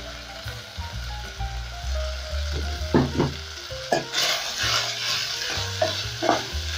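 Goat meat and freshly added sliced green capsicum frying in an aluminium pot, stirred with a wooden spoon. The sizzling grows louder about four seconds in as the stirring starts, with a few knocks of the spoon against the pot.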